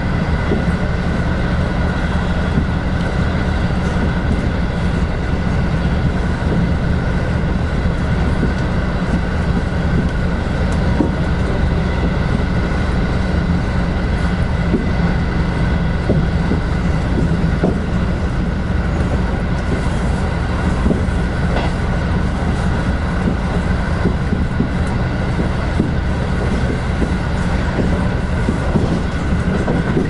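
Steady running noise heard inside a limited express train car moving at speed, with wheels on the rails and occasional faint rail clicks.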